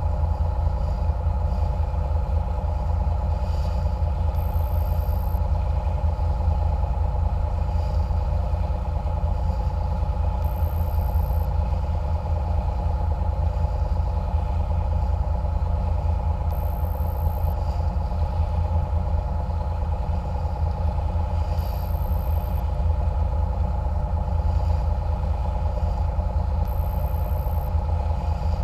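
Small catamaran cruiser's engine running steadily under way, a constant low rumble with a steady whine above it.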